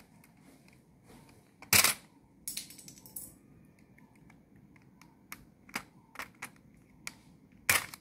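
Irregular sharp plastic clicks and knocks from a computer keyboard's plastic key frame being handled while keycaps are pushed out from underneath with a thin tool. There are about eight clicks: the loudest comes about two seconds in, a quick cluster follows, and another loud click comes near the end.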